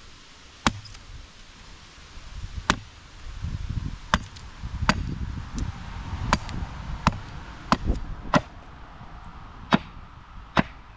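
Estwing carpenter's hatchet chopping at the end of an upright stick on a wooden chopping block to carve a point: about ten sharp chops at uneven intervals, roughly one a second. Some blows deflect and glance off the wood.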